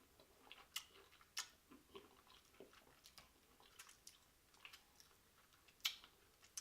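A person chewing juicy fresh fruit: soft wet smacks and clicks at irregular intervals, a few sharper than the rest, the loudest near the end.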